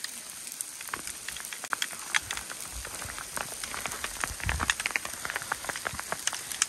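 Hail falling: a dense, irregular patter of sharp ticks over a steady hiss.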